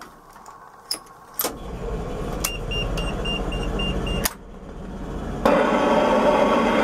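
Switches clicking in the cab of a 1988 ZiU-682V trolleybus. A low electrical hum comes on, with a high buzzer beeping about four times a second, and both cut off with a click just past four seconds in. About five and a half seconds in, a louder steady running noise from the trolleybus's machinery starts and keeps going.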